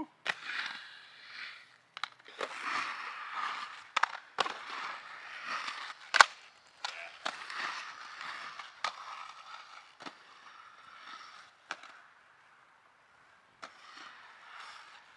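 Aggressive inline skate wheels rolling on a concrete mini ramp, a steady rolling hiss broken by sharp clacks of landings and skates hitting the ramp's edge, the loudest about six seconds in. The rolling drops away briefly about twelve seconds in.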